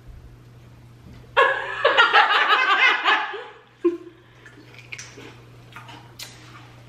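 Loud laughter for about two seconds, starting about a second and a half in, followed by a short vocal sound and a few faint clicks.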